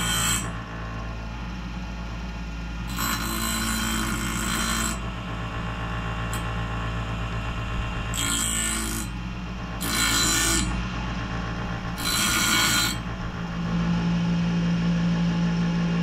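Bench grinder motor running steadily while the teeth of a Wood-Mizer sawmill bandsaw blade are ground on its fine wheel, the backs of the teeth sharpened one at a time. The grinding comes as several separate bursts of hiss over the hum, the longest about two seconds.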